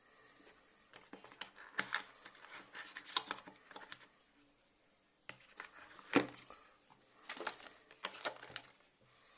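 Paperboard phone packaging and a plastic charger being handled: rustling, scraping and light taps of card in two bouts, with one sharper knock in between.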